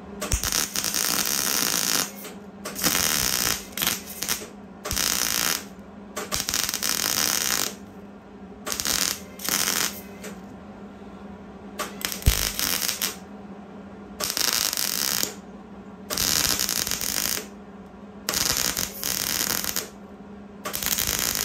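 Wire-feed welder crackling and sputtering as it lays short stitch welds on galvanized Unistrut steel channel, about a dozen bursts of half a second to two seconds with short pauses between. A steady low hum runs underneath.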